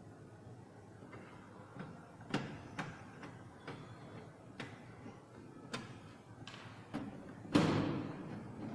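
Scattered light knocks and clicks of computer parts or the system unit's case being handled, with one louder knock about three quarters of the way in.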